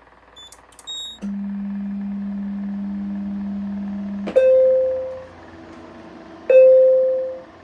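Voice evacuation system sounding its lead-in to the all-clear announcement: a few short high beeps, then a steady low tone for about three seconds, then two chime notes about two seconds apart, each fading away.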